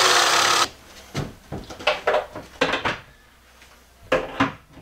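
A loud whirring noise cuts off sharply about half a second in. Then comes a string of short knocks and clicks from a wooden cabinet door and its metal hinges being handled and fitted.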